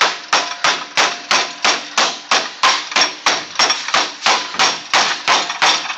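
Hammer beating the edge of a sheet-metal patch panel over a wooden form, about four even blows a second, each with a short metallic ring. It is folding the inner flange of a wheel-well patch.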